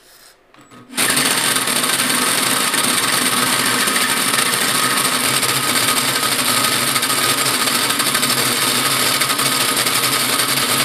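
Cordless drill driving a hole saw through the steel top of a Ford 9-inch rear axle housing: a steady cutting grind that starts about a second in.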